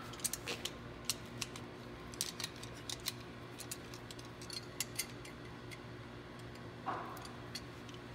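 Scattered sharp metallic clicks and clinks of large tongue-and-groove pliers being handled and their slip joints adjusted to size, then set onto the nuts of a .750 coax straight splice. The clicks come thickest in the first five seconds.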